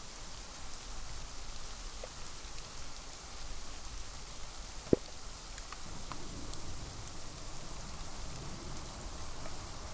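Light snow flurry falling: a steady soft hiss with scattered small ticks of flakes landing, and one sharp click about five seconds in.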